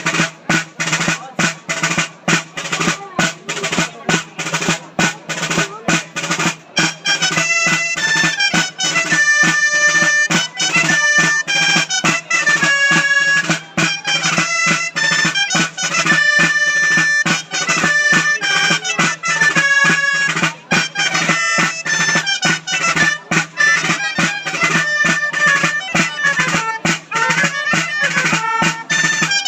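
Dolçaina (Valencian shawm) and tabal drum playing a ball de plaça dance tune. The drum beats a steady rhythm on its own at first, and the high melody comes in about seven seconds in.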